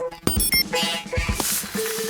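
Cartoon background music with several drum hits and a few short high electronic blips about half a second in.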